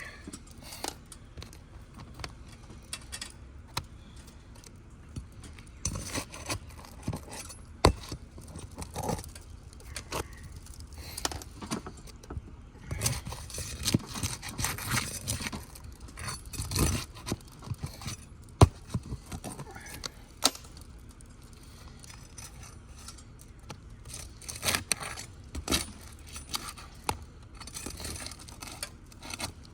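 Hands and tools working loose asphalt three-tab shingles: irregular scraping, crackling and tearing with sharp clicks and clinks, busiest about halfway through.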